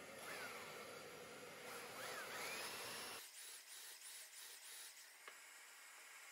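Faint room tone and hiss, with no power tool running. About halfway through, the low hum drops out abruptly, and a faint run of about five short, high chirps follows at roughly half-second intervals.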